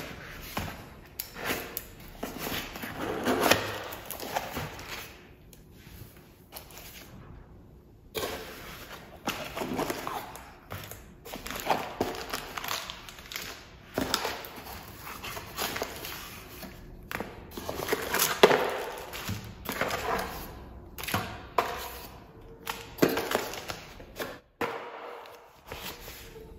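Unboxing by hand: a cardboard box opened and plastic-bagged parts lifted out and set down, with irregular rustling and crinkling of cardboard and plastic and light thunks.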